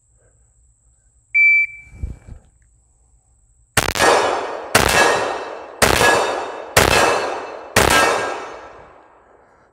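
A shot timer gives one short start beep. About two and a half seconds later a Glock 21 .45 ACP pistol fires five shots, about one a second, each trailing off in a long echo.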